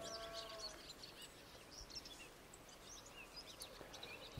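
Faint outdoor ambience with songbirds chirping, many short high calls scattered throughout. A faint steady hum fades out about a second in.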